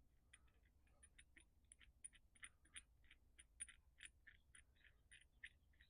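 Faint run of small sharp clicks, about three to four a second and slightly uneven, as small parts are worked at a workbench.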